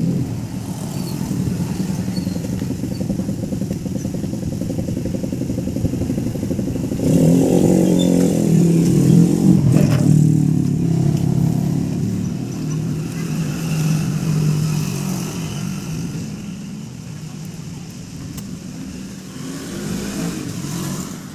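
Motorcycle engine running, growing louder about seven seconds in and then fading away over the later part.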